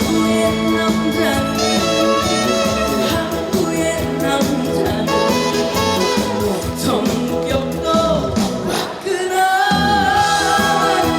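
Music from a live stage performance: a band accompaniment with a singing voice over it. It dips briefly about nine seconds in, then comes back in full.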